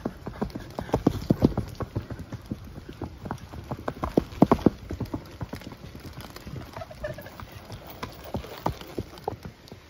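Hoofbeats of several horses on a dirt trail as they pass close by one after another, with the loudest clusters of hoof strikes about a second in and again around four and a half seconds.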